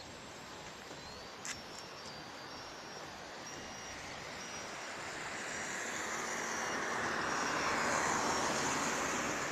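A small airplane flying overhead, its engine sound swelling louder from about halfway through and peaking near the end as it comes closer. A single sharp click about a second and a half in.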